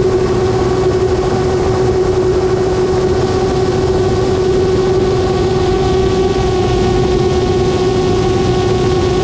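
Small aircraft's motor and propeller running at a steady cruise, heard from a camera on board: one unchanging hum with overtones over a constant rush of airflow.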